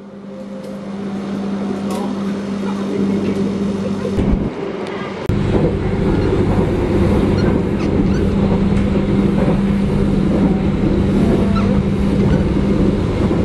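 Running noise heard inside a moving passenger train carriage: a steady rumble with a constant low hum. It fades in at the start and changes briefly about four and a half seconds in.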